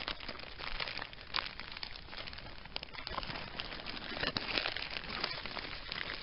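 Plastic quart-size Ziploc freezer bag crinkling and rustling as it is stuffed into a cloth camouflage pouch, with many irregular crackles.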